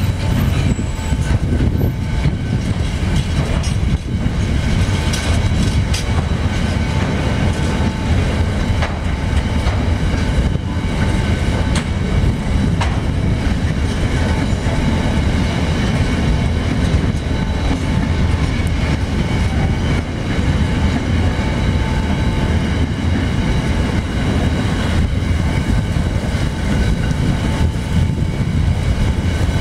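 Freight train wagons rolling past on steel rails, flat and container wagons of a long intermodal train: a loud, steady rumble and clatter of wheels over the track, with a faint high tone that comes and goes.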